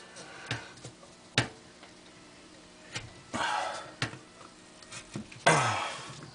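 Crumpled paper balls being handled and pushed down onto nails in a board: a few sharp taps and clicks, and two longer crunching rustles of paper, the louder one about five and a half seconds in.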